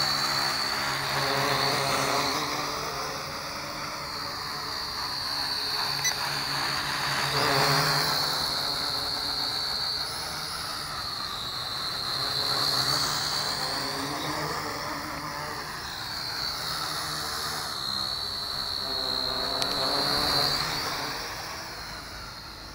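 JJRC H12C toy quadcopter's motors and propellers buzzing with a high whine as it hovers and manoeuvres, the pitch wavering and the loudness swelling and ebbing as it moves nearer and farther. It fades near the end as it drops low and away.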